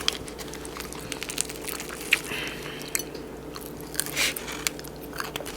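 A person chewing food with mouth sounds and small crunchy clicks scattered throughout.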